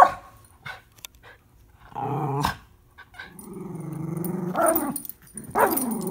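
Miniature schnauzers play-growling during a tug of war over a plush toy. A sharp bark at the very start, a short growl about two seconds in, then a long growl from about three seconds in and another starting near the end.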